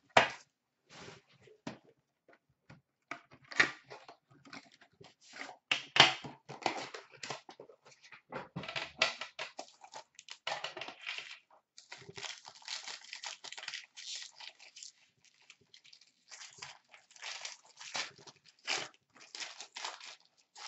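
Plastic shrink wrap and packaging crinkling and tearing as a sealed box of hockey cards is unwrapped and opened, in many short, irregular crackles.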